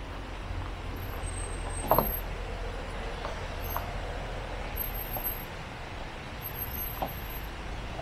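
Citroën Jumper camper van's engine running low as it rolls slowly down a gravel track, with scattered small crunches of tyres on loose stones and one sharp knock about two seconds in.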